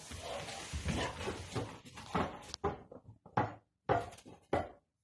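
A young Hungarian vizsla playing with a ball on carpet. First comes continuous scuffling as it pushes the ball along, then about five short knocks as it noses and mouths the ball.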